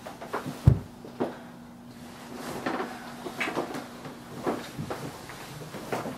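Scattered knocks and thumps of people moving about a small room: footsteps, handling noises and someone sitting down on a bed, the loudest a dull thump under a second in. A faint steady hum runs underneath.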